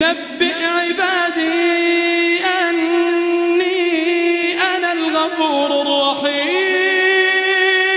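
A man's voice in melodic Quran recitation, drawing out long held notes of a few seconds each with short wavering turns between them.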